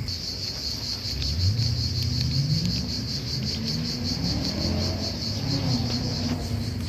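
A high, fast-pulsing insect trill, with the low hum of a passing vehicle's engine underneath.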